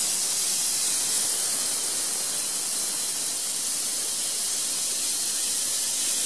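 Brass pressure relief valve on a small homemade steam boiler blowing off steam in a steady hiss. It is stuck open and not reseating, which the owner thinks is because it can't handle enough volume.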